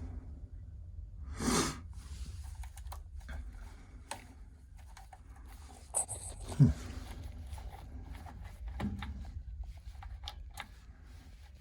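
Scattered clicks and scrapes of hands working at a gas water heater's control valve, over a steady low hum. There is a short rushing noise about one and a half seconds in and a louder knock a little past halfway.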